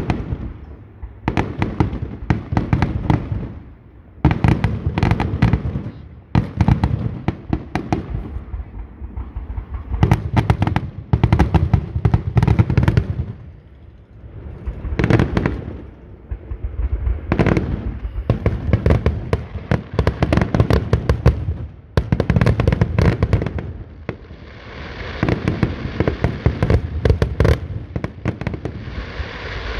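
Aerial fireworks shells bursting overhead in repeated clusters of sharp bangs and crackles, a new volley every second or two. Toward the end the bursts pile up into a denser, more continuous crackle.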